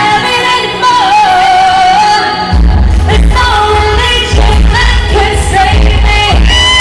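Live pop singing with musical accompaniment: a sung melody, and a heavy bass and beat coming in about two and a half seconds in.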